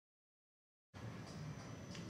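Dead silence for about the first second, then a low, steady background hum with faint ticks comes in.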